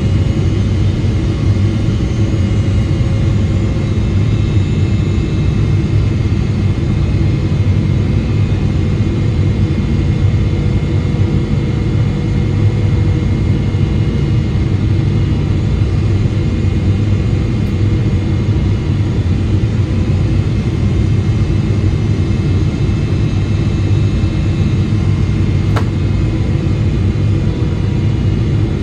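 Boeing 777-300ER cabin noise on approach, heard from a window seat: its GE90-115B turbofans and the airflow make a constant, even low rumble with faint steady whine tones above it. A single small click comes near the end.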